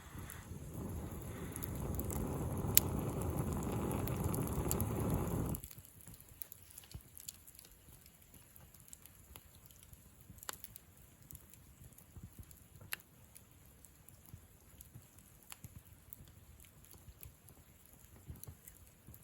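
Wood campfire crackling with sparse sharp pops. For about the first five seconds a loud low rushing noise rises over it, then cuts off suddenly.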